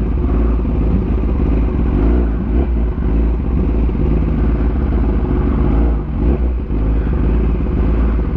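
Sportbike engine running at low revs as the motorcycle rolls slowly, a steady deep rumble with its pitch briefly rising and falling twice, about two and a half and six seconds in.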